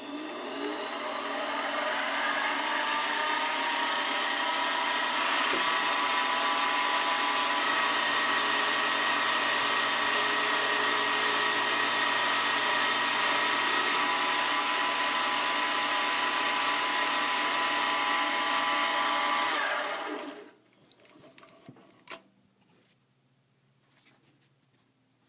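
Mini lathe motor spinning a skateboard wheel for truing out flat spots: it spins up with a rising whine, runs steadily for about twenty seconds, then winds down. A few light clicks follow near the end.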